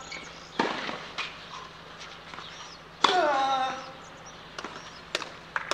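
Tennis ball struck by rackets during a rally, a few sharp pops. About three seconds in comes the hardest hit, followed straight away by a player's cry that falls in pitch. A few light taps of the ball come near the end.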